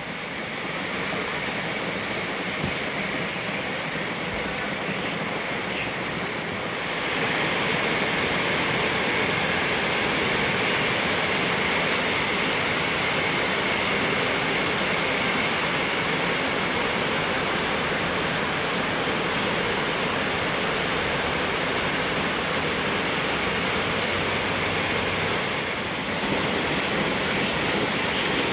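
Steady rain falling, an even hiss that grows a little louder about seven seconds in.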